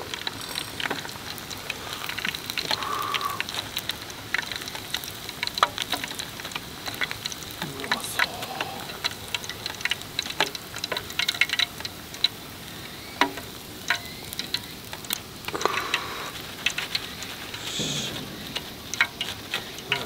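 Hot oil sizzling and crackling in an aluminium mess tin as pieces of cartilage karaage deep-fry, with irregular sharp pops.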